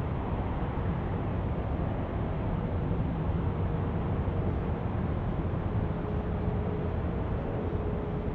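Airbus A320neo airliner on final approach, its engines a steady low rumble with a faint thin whine in it.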